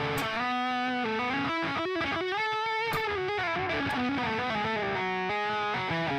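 Fender electric guitar played through a Fortin Cali Suite high-gain amp simulator, overdriven. It plays a melodic line of held notes, a few of them bent.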